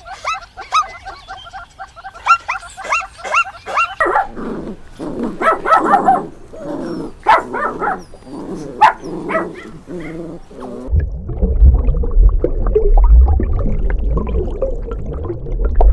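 Dog yipping in quick, repeated high calls, about four a second, then a looser run of barks and whimpers. A loud low rumble comes in over the last few seconds.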